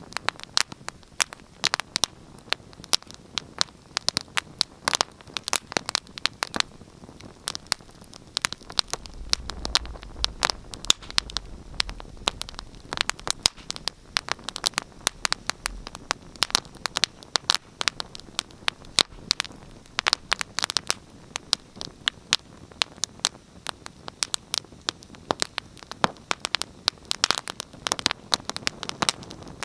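Wood fire crackling and popping steadily in a fireplace, with many irregular sharp snaps over a soft hiss; a low rumble joins in for a few seconds in the middle.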